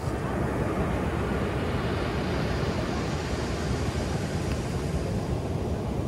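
Ocean surf washing up a sandy beach at the water's edge: a steady rush of water over a low rumble, the hissing wash fading after about two seconds as it drains back.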